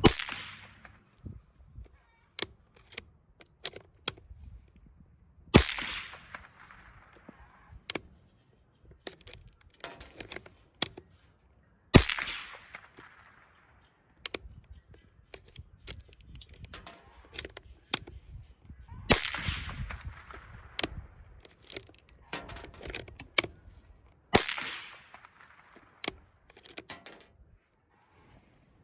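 Five shots from a Rossi .22 LR rifle, about five to seven seconds apart, each a sharp crack with a long fading echo. Lighter clicks and knocks come between the shots.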